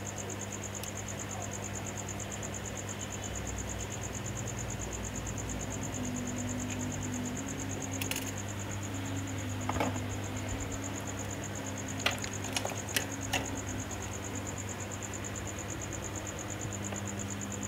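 A steady, high-pitched, evenly pulsing trill over a low steady hum, with a few short, sharp clicks about twelve to thirteen seconds in.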